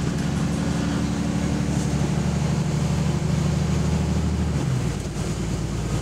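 Diesel engine of a Wright-bodied double-decker bus, heard from inside the cabin as it drives, with a steady low drone whose note drops about five seconds in; the bus has an exhaust leak.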